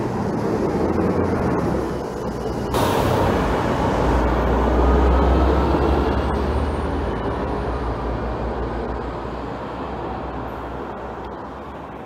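Street traffic with double-decker buses and cars passing, a deep bus engine rumble loudest in the middle, fading away toward the end.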